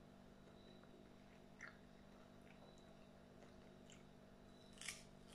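Faint mouth sounds of eating soft peach slices: a small wet smack about a second and a half in and a louder one near the end, over a steady low hum.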